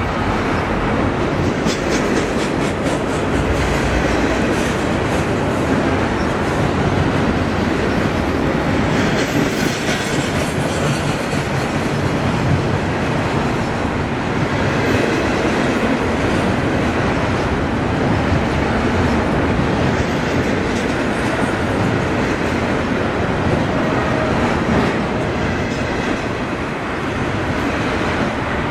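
Double-stack intermodal freight train's well cars rolling past, steel wheels on rail making a loud, steady noise with occasional clicks.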